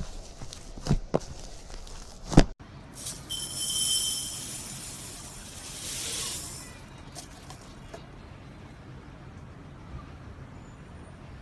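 Slime being squeezed and pressed close to the microphone, with a few sharp pops in the first couple of seconds, then a soft hissing, crackling swell that fades out.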